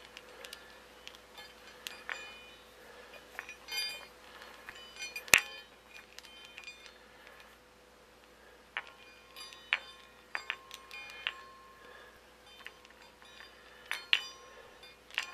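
Two steel Baoding balls with chimes inside turned in one hand. Scattered clicks as the balls touch, each followed by a short bell-like ring from the chimes, the loudest about five seconds in, with a quieter stretch in the middle.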